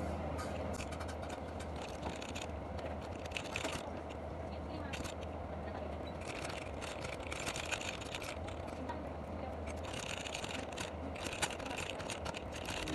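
Typing on a mechanical keyboard: quick key clicks in flurries broken by short pauses, over a steady low hum.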